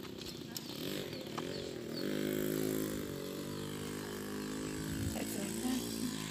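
A small petrol engine running steadily, its pitch wavering a little in the first couple of seconds, then holding even.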